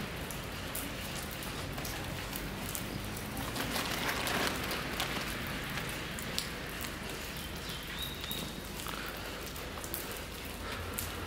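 Rainwater dripping onto wet pavement: a steady hiss of falling water with many sharp single drips, and one brief high chirp about eight seconds in.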